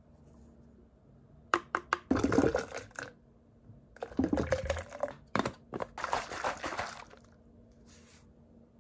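A few sharp clicks, then liquid splashing inside a plastic shaker bottle in three bursts as a powdered BCAA drink is mixed with water.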